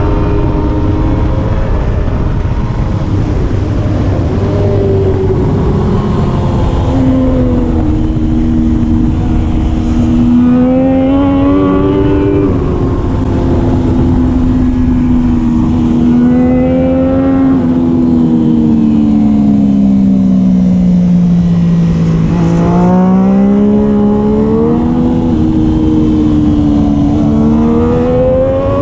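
Triumph Daytona 675R racing motorcycle's inline three-cylinder engine running hard, its pitch rising and falling smoothly over several seconds at a time as the revs climb and drop, lowest a little past two-thirds of the way through.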